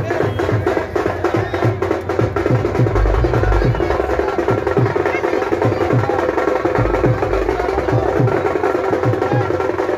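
Devotional music with a steady, quick drum beat of about three strokes a second over other percussion.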